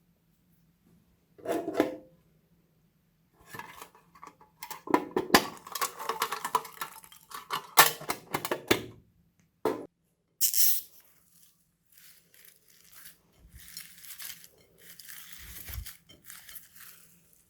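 Slime being handled and mixed with added bits: irregular crackling, tearing and clicking noises in short bursts, loudest about five to nine seconds in, then softer crackles.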